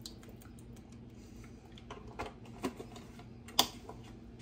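A few light knocks and clicks of kitchen handling at the stove as the emptied broth carton is set down, the loudest about three and a half seconds in, over a faint steady hum.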